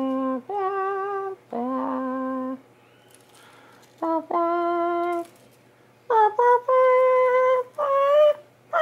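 A voice humming a slow tune in long held notes, with a short pause about three seconds in.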